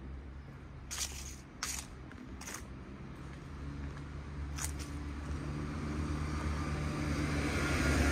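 Street traffic: a vehicle engine running with a steady low hum, with a few sharp clicks in the first half. A passing vehicle grows louder toward the end.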